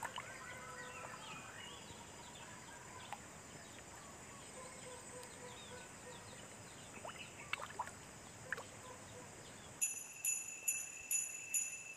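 Faint outdoor background with scattered short bird chirps. About ten seconds in, sleigh-bell jingling starts in a steady quick beat, the opening of background music.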